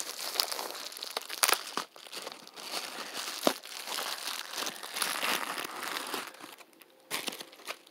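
Plastic packaging crinkling and crackling as an item is unwrapped by hand. It dies down about six and a half seconds in, with a couple of short rustles near the end.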